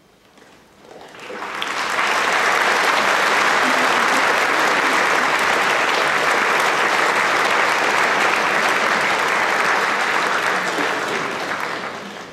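Large audience applauding. The clapping starts about a second in, builds quickly to a steady level, and begins to fade near the end.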